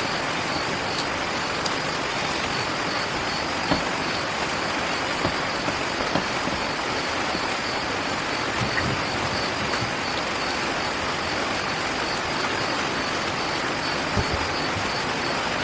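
Steady hiss of background noise, with a few faint clicks scattered through it.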